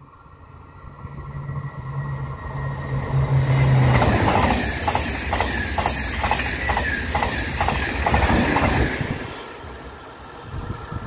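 Double-deck TGV high-speed train passing through at speed. The rush of sound builds as it approaches. At its loudest comes a run of regular wheel clicks over the rail joints, about two a second, with a high falling whine. The sound fades quickly near the end.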